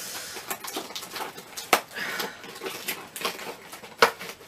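A postal parcel being pulled open by hand: irregular crackling and rustling of its packaging, with a sharp click about four seconds in.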